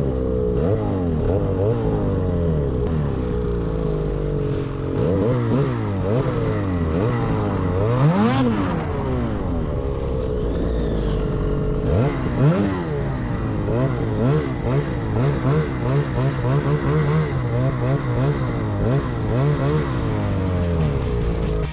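Snowmobile engine under load in deep powder snow, revving up and down over and over as the throttle is worked, with a sharp rise about eight seconds in and another about twelve seconds in.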